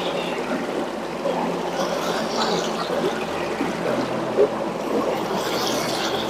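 Water trickling and splashing as a gold pan is swirled and washed down, with small irregular splashes.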